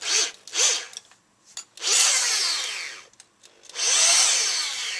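Electric drill spinning an aluminium motorcycle pushrod clamped in its chuck, run in short bursts: two quick blips, then two longer runs of about a second each that wind down. The rod is being spun to check it for bend and runout.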